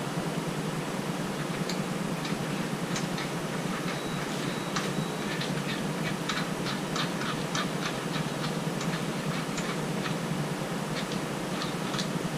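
Scattered light metallic clicks and taps of engine parts being handled as main bearings and caps are fitted, most frequent in the middle, over a steady fan hum.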